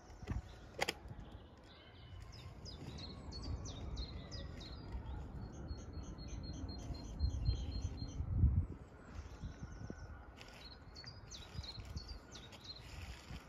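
Small songbirds chirping and singing in the trees, including a run of quick, evenly repeated high notes midway, over a low rumble that swells about eight seconds in. A single sharp click comes just after the start.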